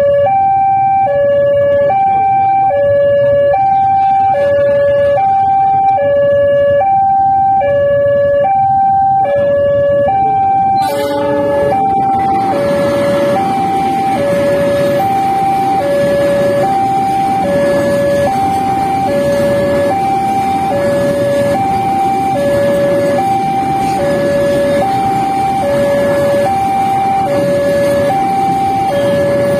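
Railway level-crossing warning alarm sounding without pause, an electronic tone alternating between two pitches, each about half a second long. About eleven seconds in, a container freight train starts passing through the crossing, and the steady rumble and clatter of its wheels on the track joins the alarm.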